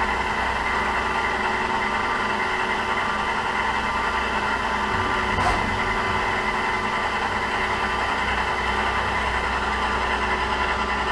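Bridgeport Romi EZ-Path II CNC lathe spindle running steadily in the second range of its three-speed gearbox, a constant mechanical hum with a steady whine. There is a single light tick about halfway through.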